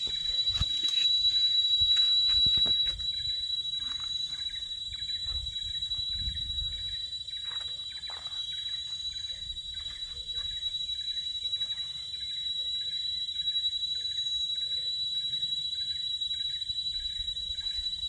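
Tropical forest insects droning on one steady high pitch, with a fainter pulsing chirp repeating about twice a second underneath. Wind rumbles on the microphone, strongest in the first three seconds.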